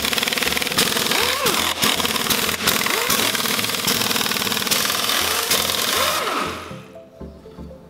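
Pneumatic impact wrench hammering on rusty nuts of a truck's air-spring (airbag) suspension, a dense continuous hammering that stops about six and a half seconds in.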